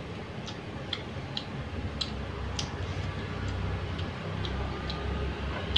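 Person chewing a mouthful of spicy instant noodles: small sharp wet mouth clicks at uneven intervals, roughly two a second, over a low steady hum.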